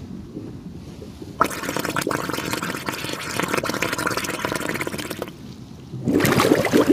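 Rushing, gurgling water, as in an underwater ambience. It starts suddenly about a second and a half in, drops back briefly near five seconds, then returns louder with quick bubbling streaks near the end.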